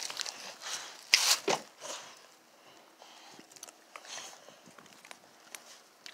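Close handling noise from a phone being moved about, with scattered rustles and crunches and one sharp knock about a second in.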